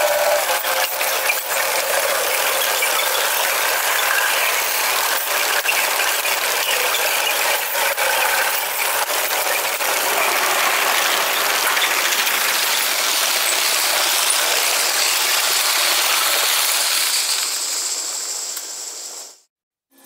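Freight train's hopper cars rolling past over a grade crossing: a steady clattering rush of steel wheels on rail with many fast clicks, just after the last note of the locomotive's horn, fading out near the end.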